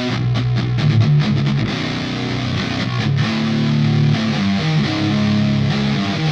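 Sterling JP70D electric guitar played with heavy distortion through a Line 6 POD HD500: quick picked notes in the first second or so, then long held low notes.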